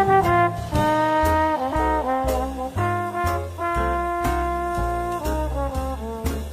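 Jazzy background music with a brass melody over a bass line and drum beats.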